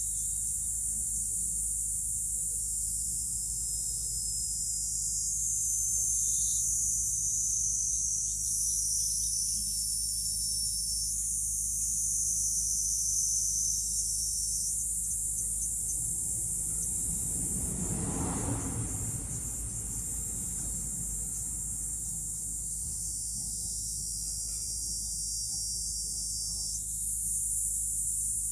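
Steady high-pitched insect chorus, its layers of pitch shifting every few seconds. About two-thirds of the way through, a broad whooshing sound swells and fades away.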